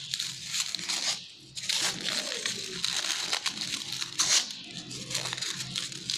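Crepe paper crinkling and rustling in the hands as a strip is twisted and wound round into a rose, a run of irregular crackles with a brief pause just after a second in.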